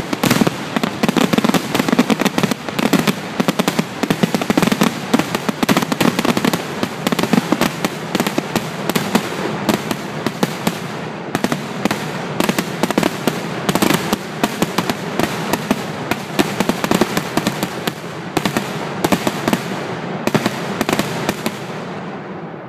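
Fireworks grand-finale barrage: a dense, continuous string of aerial shell bursts and crackle, thinning out in the last second or two.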